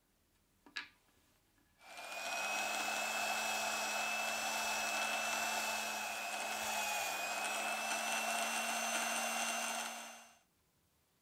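A single click, then a pillar drill (drill press) starts about two seconds in and runs steadily with a hum and a high whine while its twist bit bores into a plywood block, stopping a second or so before the end.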